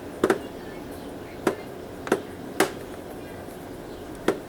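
Sharp, irregular clicks and taps of a small steel knife working on the PS3's screws and plastic casing: a close pair near the start, then single clicks about every half second to a second and a half.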